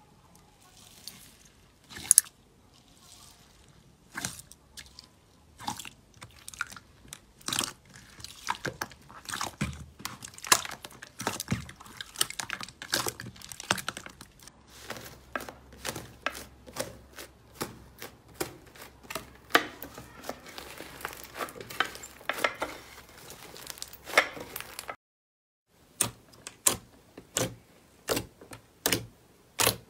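Hands pressing, squeezing and poking slime, a crunchy bead-filled slime and then a glossy one, making a run of sharp crackles and pops. The sound drops out for about a second near the end, then the popping starts again.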